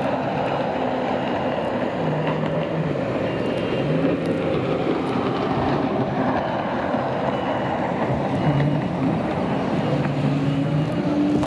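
Racing jet ski engines running at speed across open water, their engine note stepping up and down as they throttle and turn.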